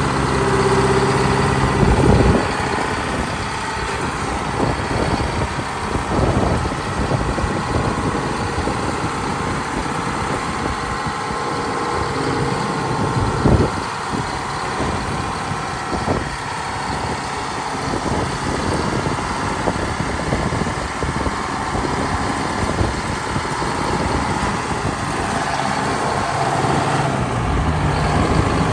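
Detroit Diesel two-stroke diesel engine running. It idles steadily for the first couple of seconds and again near the end, with a rougher, busier stretch in between, broken by a few sharp knocks.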